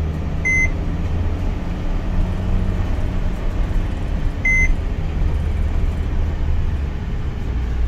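Steady low engine and road hum heard from inside a van's cab driving slowly, with two short, high electronic beeps from the vehicle about four seconds apart.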